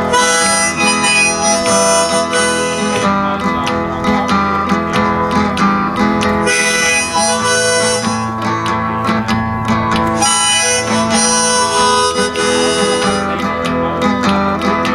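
Blues harmonica playing an instrumental break over acoustic guitar accompaniment, in three bright phrases with the guitar carrying on between them.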